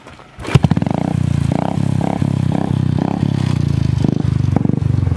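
Motorcycle engine running with a rapid, even low pulsing. It cuts in suddenly about half a second in.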